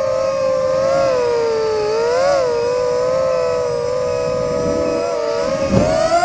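Racing quadcopter's brushless motors and bullnose DAL 5045 propellers whining up close, several near-identical pitches that swell and dip together with the throttle, with a rise about two seconds in. A brief thump comes shortly before the end.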